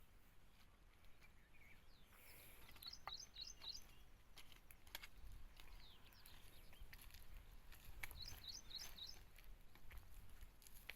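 Quiet outdoor ambience with a bird calling: two short bursts of about four quick, high chirps, a few seconds apart, along with scattered faint clicks.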